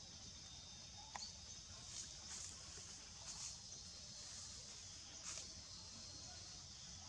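Faint outdoor ambience: a steady high hiss with a low rumble underneath, and a few soft clicks and rustles scattered through.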